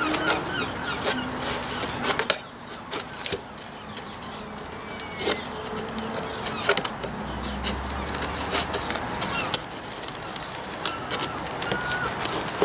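Glued foam seat padding crackling and tearing as it is peeled and pried off a fibreglass seat base, with irregular clicks and short squeaky creaks.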